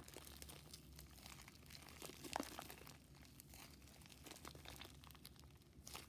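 Near silence: faint room hum with a few soft crinkling clicks, one a little louder about two and a half seconds in.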